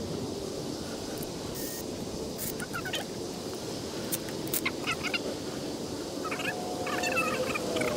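Birds calling in short bursts of quick chirping notes, about two seconds in, again near five seconds and more often toward the end. A few sharp clicks fall in between, over a steady low hum.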